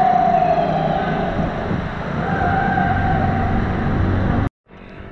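Road-riding noise from a vehicle in motion, a dense rush of engine and wind, with a steady high tone sounding twice for about a second each. The sound cuts off suddenly near the end.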